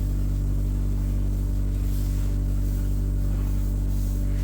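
Farm machine engine running steadily at a constant speed, a low even drone with no change in pitch.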